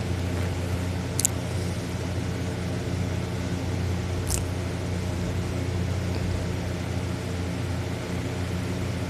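A steady low hum that holds level throughout, with two brief sharp clicks, about a second in and about four seconds in.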